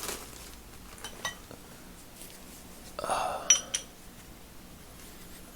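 Steel socket clinking and scraping against the half-inch drive anvil of a Proto quick-release ratchet as it is pushed on without pressing the release. A couple of faint ticks, then a cluster of sharper metal clinks with a short ring about three seconds in.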